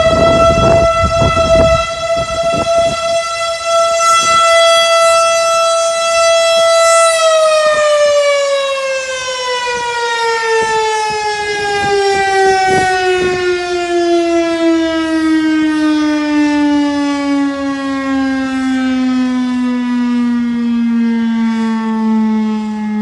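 Federal Signal STH-10A electromechanical fire siren sounding a fire alarm. It holds a steady high wail, then about seven seconds in its pitch starts a long, slow fall as it winds down. A low rush of noise sits under it for the first couple of seconds.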